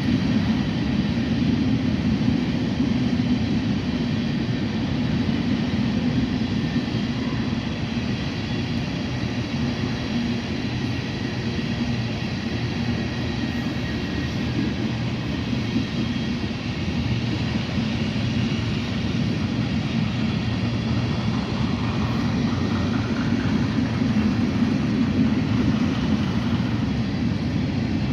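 Heavy diesel engine running steadily with a deep, unbroken rumble.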